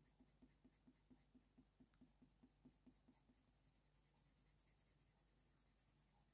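Very faint scratch of a Faber-Castell Polychromos coloured pencil shading on hot-press watercolour paper: quick light strokes about four a second, dying away about three seconds in.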